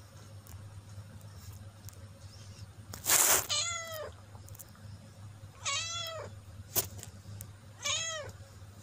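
A cat meowing three times, each meow rising and falling in pitch, spread over the last five seconds. Just before the first meow comes a short, loud noisy burst, the loudest sound here, and a sharp click falls between the second and third.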